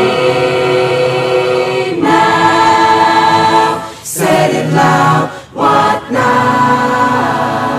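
Choir singing long held chords in several voice parts, with brief breaks about four and five and a half seconds in.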